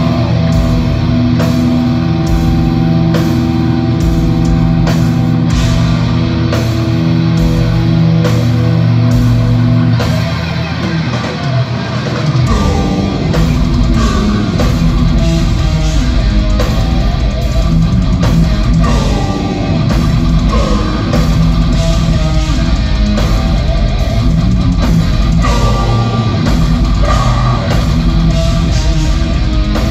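Heavy metal band playing live in a large hall, recorded from the audience: distorted electric guitars, bass and drum kit at full volume. Long held chords open, and about twelve seconds in the drums pick up a dense, driving rhythm under the guitars.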